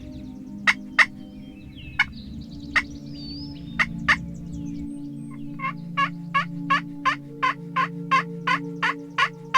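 Wild turkey calling: a few single clucks, then a steady run of about a dozen yelps, roughly three a second, starting about halfway through.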